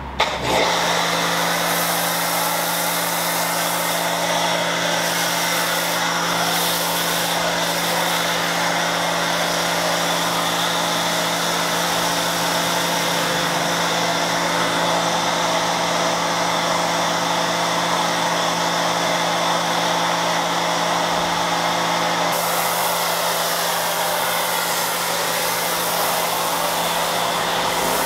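Pressure washer running a foam cannon: a steady motor hum under the hiss of the foam spraying out. About three-quarters of the way through, the pitch of the hum changes.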